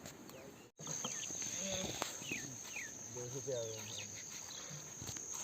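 Crickets trilling in one steady high tone at night. The sound drops out briefly under a second in, then returns. A few short falling chirps and faint talk sit beneath it.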